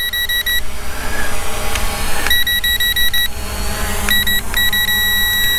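Electronic warning beeps from the ZLRC SG906 drone's handheld remote controller: runs of quick short beeps alternating with tones held for about a second, over low wind rumble on the microphone.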